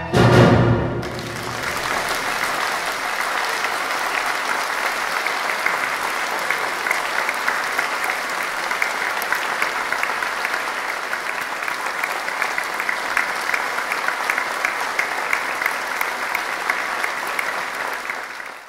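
A trumpet-and-orchestra piece ends on a loud final note in the first second, and steady audience applause follows until it cuts off at the very end.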